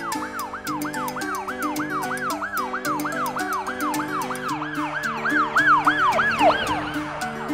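Ambulance siren sound effect: a fast rising-and-falling wail, about three cycles a second, fading out near the end. Background music with a steady beat plays under it.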